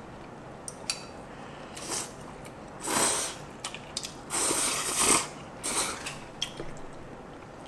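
People slurping thick ramyeon noodles: a few loud slurps over several seconds, one lasting about a second, with small clicks between.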